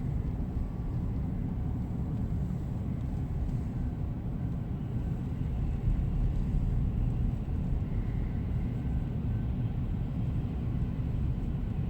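Steady low rumble of engine and tyre noise heard inside a moving vehicle's cabin.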